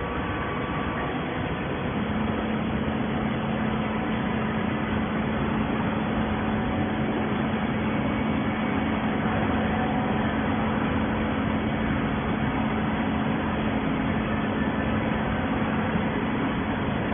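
Cardboard baler running: a steady machine noise with a constant hum that sets in about two seconds in and holds steady.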